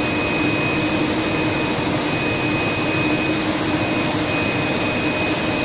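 Steady machinery noise of a water bottling line: an even hiss with a low hum and a high whine held steady through it.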